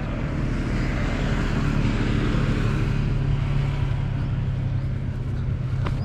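A steady engine drone with a low hum underneath.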